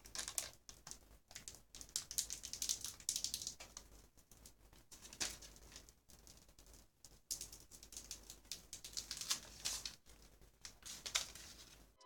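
Computer keyboard being typed on: faint, irregular clicks and taps in quick runs.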